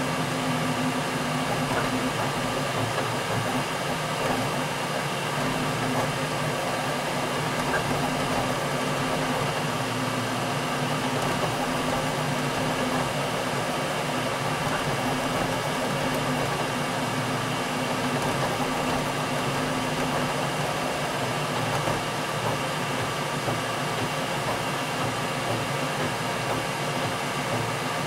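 Flashforge 3D printer running a print: a steady whir of fans and motors, with a low hum that comes and goes as the print head moves.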